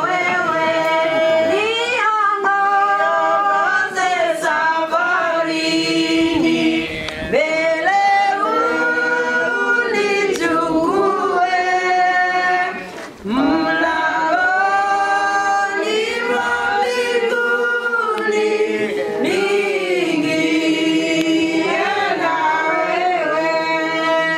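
A small mixed group of men and women singing together unaccompanied, with long held notes and a brief pause between phrases about halfway through.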